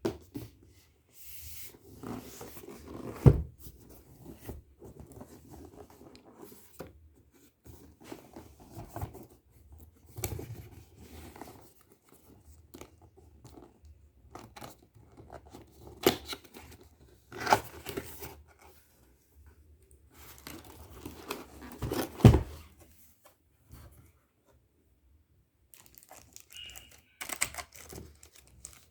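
Keyboard packaging being unwrapped and handled: rustling, crinkling and tearing of the wrapping, with irregular handling noises and two sharp knocks, one a few seconds in and one about two-thirds of the way through.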